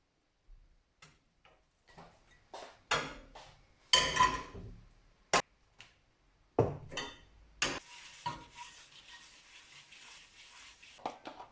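Kitchen utensils and dishes being handled: a run of clinks, knocks and scrapes, the loudest about four seconds in, then a steady hiss for the last few seconds.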